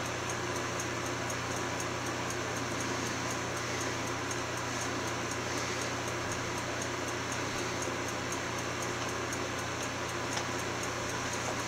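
Steady room tone: an even hiss with a low hum underneath and no distinct event.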